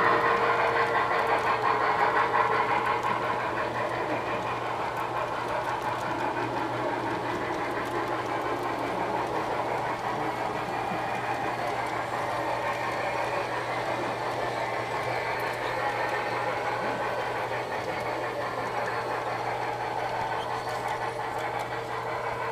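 Model railroad freight cars rolling along the track across a trestle: a steady rolling rumble and clatter of wheels on rail, easing off a little over the first few seconds and then holding level.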